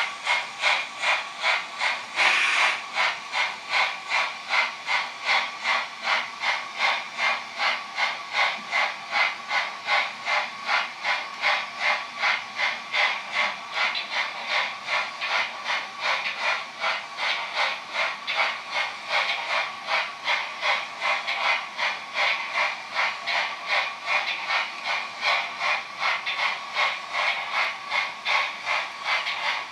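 Sound-decoder steam chuffing from a model French 231 PLM Pacific steam locomotive with ESU LokSound, played through the model's small speaker: a steady exhaust beat of about two chuffs a second, with a brief louder burst of hiss about two seconds in.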